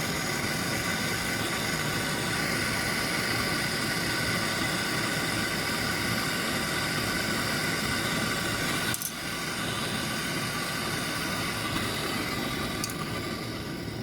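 Canister gas torch burning steadily with a continuous hissing rush while heating a refrigerator's copper pipe for brazing, with a brief break in the sound about nine seconds in.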